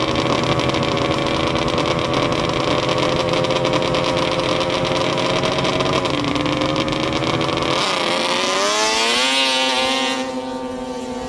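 Snowmobile engines running at high revs in a drag race, their pitch climbing slowly. About eight seconds in, the pitch dips and climbs again with a rush of hiss, then the sound drops and levels off near the end.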